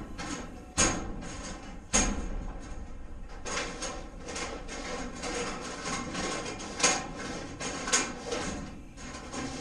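Steel fish tape and its reel rattling and clacking as it is yanked and worked, with sharp knocks about one and two seconds in: the tape is jammed in the roll.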